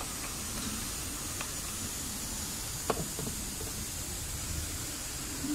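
Steady background hiss with two faint, short clicks, about a second and a half and three seconds in, as small metal parts and tools are handled.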